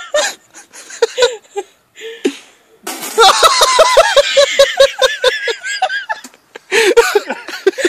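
Laughter: a few short chuckles in the first couple of seconds, then a long run of hearty, rhythmic laughter from about three seconds in lasting some three seconds, and another laugh near the end.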